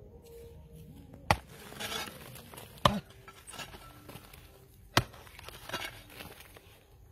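Hands digging and scraping in dry sand, with three sharp knocks spaced out across the stretch.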